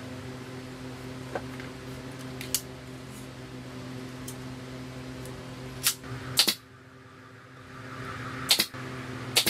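Pneumatic nailer being loaded and fired: sharp metal clicks as the nail strip is fitted and the magazine snapped shut, then two sharp shots about a second apart near the end as nails are driven into the frame corner. A steady low hum runs underneath and cuts out about two-thirds of the way through.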